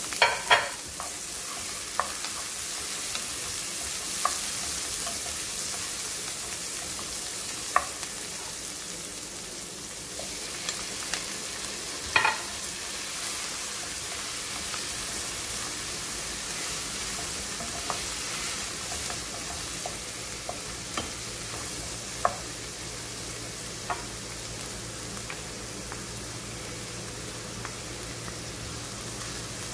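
Chopped onion, green bell pepper and tomato sizzling steadily in a frying pan while being stirred with a wooden spoon, with occasional short sharp knocks.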